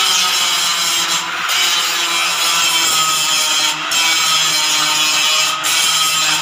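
Corded angle grinder grinding on a steel-tube roof frame, its disc scraping the metal with a steady motor hum underneath. The grinding briefly breaks off three times as the disc comes off the steel.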